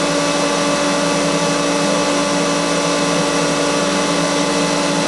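Water tunnel's pump and motor running steadily: a constant machine hum with several fixed tones over an even rushing noise.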